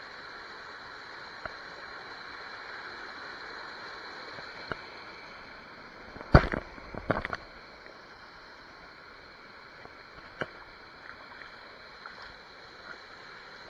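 River water rushing steadily over rocks at a small cascade. About halfway through, a brief cluster of knocks and bumps.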